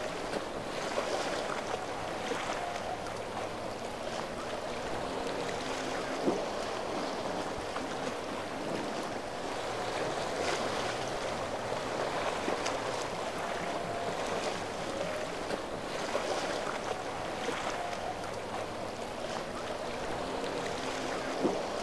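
Waterfront ambience: a steady wash of waves and wind, with boat engines droning faintly in the distance. Two brief knocks stand out, about six seconds in and near the end.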